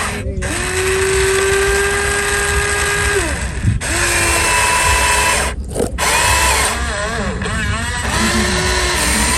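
Electric motor whine of a remote-control model excavator working, holding a steady pitch for a few seconds, then dropping and wavering up and down as the load changes. It breaks off abruptly a few times.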